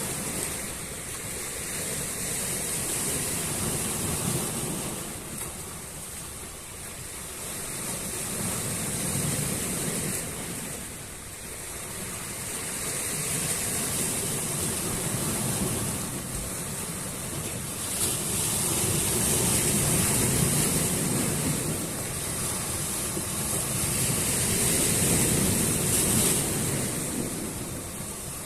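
Sea waves breaking on the shore, a continuous wash of surf that swells and fades roughly every five seconds.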